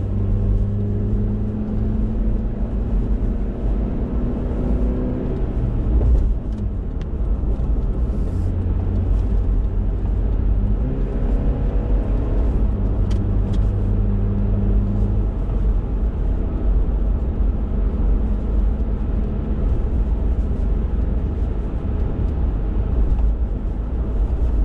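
A car's engine and tyre rumble heard from inside the cabin while driving. The engine note climbs as the car picks up speed, near the start and again about halfway through.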